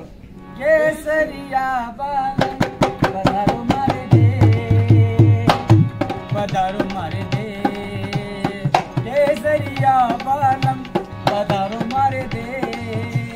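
A dholak barrel drum played by hand in a quick, busy rhythm, with a folk song sung over it; deep bass strokes on the drum come in about four seconds in.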